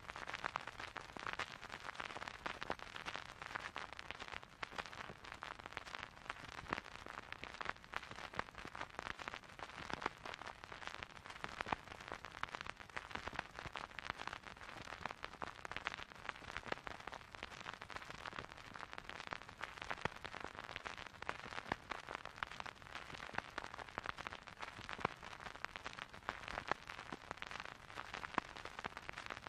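Dense, steady crackling noise made of many small clicks, a noise texture within a dark ambient track.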